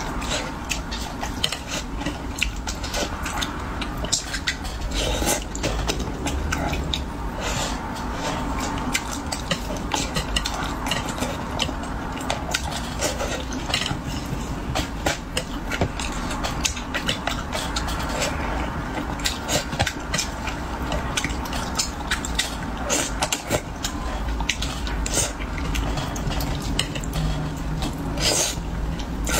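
Close-up eating sounds: chewing and sucking on pieces of braised fish in sauce, with many wet mouth clicks and smacks and now and then a clink of chopsticks on the dish.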